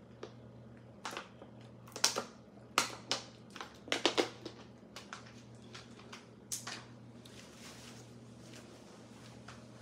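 Irregular clicks, taps and rustles of close handling, the sharpest bunched between about one and seven seconds in, over a steady low hum.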